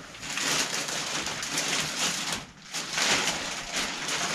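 Clear plastic wrapping on a new bicycle crinkling and rustling as the bike is handled and lifted, in two stretches with a short pause about two and a half seconds in.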